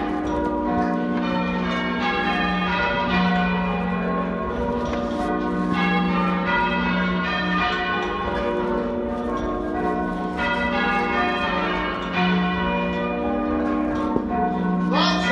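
A ring of church bells change ringing half-muffled: each bell strikes clear on one stroke and dull and muted on the other, the echo effect traditionally rung for mourning or remembrance. A short rising squeak comes near the end.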